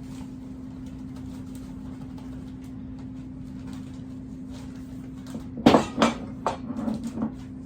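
Knocks and clatters of kitchen containers and utensils being handled while brown sugar goes into a homemade brine, beginning about five and a half seconds in. The first two knocks are the loudest. A steady low hum runs underneath.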